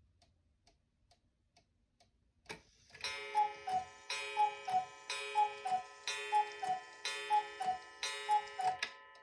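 Black Forest cuckoo clock ticking softly, then a click as the strike releases, and the cuckoo calling six times, one falling two-note 'cu-ckoo' a second from its bellows pipes, with a soft thump of the bellows under each call.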